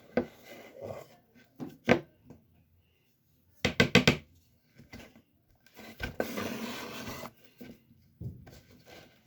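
Spoon scraping and knocking in a cup while cornstarch is mixed into water, with a quick run of sharp knocks about four seconds in and about a second of steady scraping a little later.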